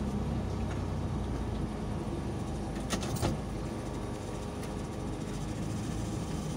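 Car driving on a wet road, heard from inside the cabin: a steady rumble of engine and tyres, with two short clicks about three seconds in.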